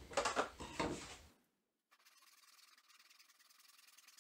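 Knocks and rubs as a handsaw and a wooden fence-picket board are picked up and set on a workbench. After a short gap comes a faint, even rasp of the handsaw beginning to cut across the board.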